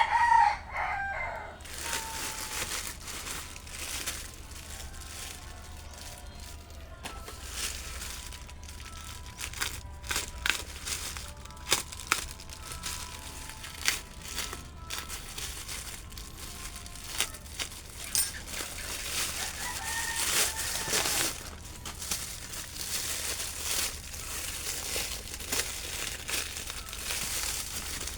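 A rooster crows loudly at the start, then packaging crinkles and rustles with scattered clicks and knocks as a box is unpacked. Another shorter fowl call comes about two-thirds of the way through.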